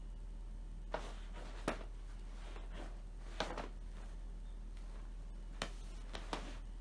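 A cat playing against a yoga mat: five or so short, sharp taps and scratchy rustles spread out, the loudest about two seconds in, over a low steady hum.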